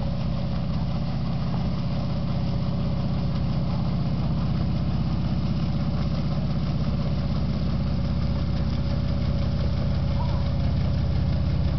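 Engine of a VW paddleboat running steadily as it churns across the river, a low, even hum that grows slightly louder near the end as the boat comes closer.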